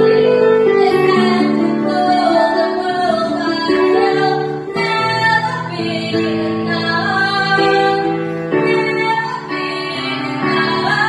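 A woman singing a song, holding notes and moving between them, over instrumental accompaniment.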